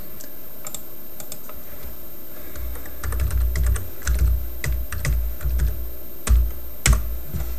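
Typing on a computer keyboard: a run of irregular key clicks with dull thumps, starting a couple of seconds in, the two loudest strokes near the end.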